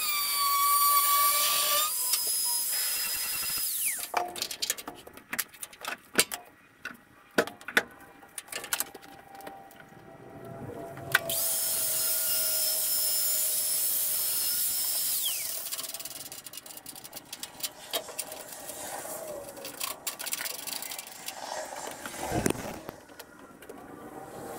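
Handheld power tool run twice, about four seconds each, cutting into a steel truck-bed crossmember to elongate its bolt holes. Each run ends in a falling whine as the tool spins down, with clanks and knocks in between.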